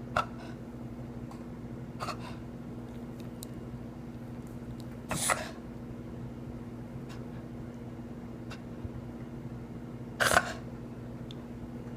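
Cocker spaniel giving short, sharp sneeze-like snorts every few seconds, the two about five and ten seconds in the loudest. This is the unexplained breathing noise his owner cannot account for, which comes with wheezing and coughing, and which the vet has not yet identified.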